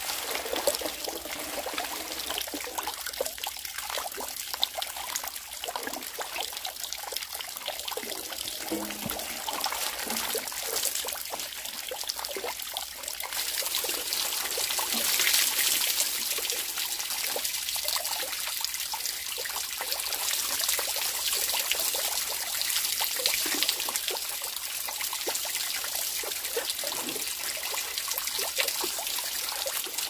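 Water running from a bamboo spout into a wooden tub and trickling over onto the ground, with small splashes as leafy greens are washed in the tub. The running water gets louder and brighter about halfway through.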